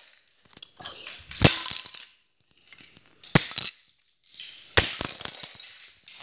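Plastic Lego bricks clattering on a hard, smooth floor: three sharp knocks, each followed by a brief rattle of small loose pieces skittering, roughly a second and a half apart.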